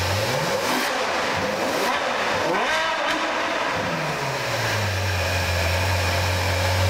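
Ferrari F12 berlinetta's V12 engine through its sports exhaust, blipped from idle in several quick revs that rise and fall, the biggest about three seconds in, then settling back to a steady idle.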